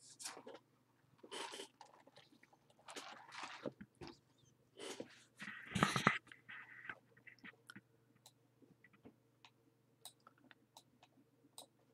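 Faint, soft noisy rustles close to the microphone, the loudest about six seconds in, then light scattered clicks of a computer mouse, over a faint steady electrical hum.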